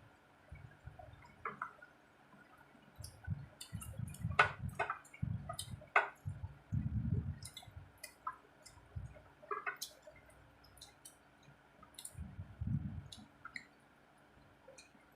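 Eating sounds of rice and curry: wet chewing and mouth clicks at an irregular pace, with a few dull low bumps.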